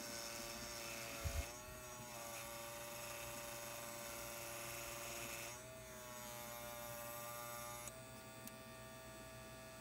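Craftsman scroll saw running as it cuts a thick hardwood knife-handle scale: a faint, steady motor hum whose pitch shifts slightly a few times.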